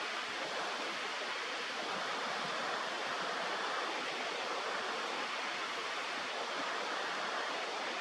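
Steady rushing of flowing river water, an even hiss with no bird calls.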